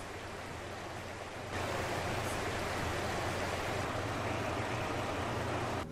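Steady rushing of fast-flowing floodwater, with a low steady hum underneath; it gets louder about one and a half seconds in.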